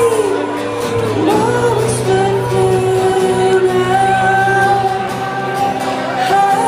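Live trance song with a woman singing long held notes that slide between pitches, over synth chords and a steady bass. It is heard from among the crowd, through the PA of a large hall.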